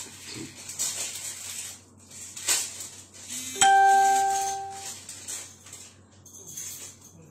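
A single chime rings once about halfway through and fades over about a second, over soft rustling.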